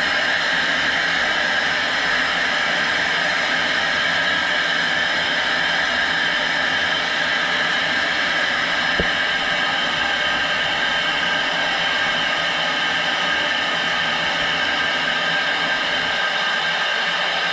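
Hyperbaric chamber's air venting with a loud, steady hiss as the chamber decompresses during ascent to 6 m. It cuts off suddenly near the end as the vent shuts.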